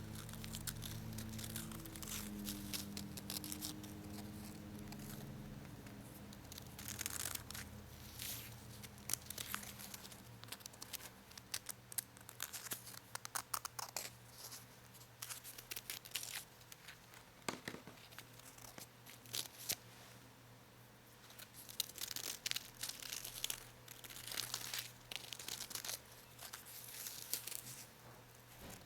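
Close, crackly peeling and crinkling of paper and plastic, coming in irregular bursts of fine clicks and rips with two quieter stretches in between.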